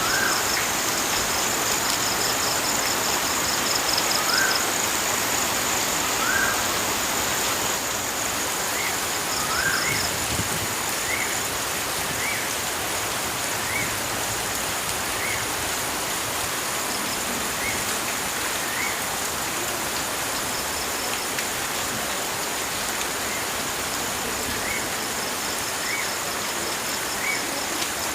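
Steady rush of flowing water from a waterfall or stream. Over it, a short rising call repeats every second or two, with a high pulsing insect trill.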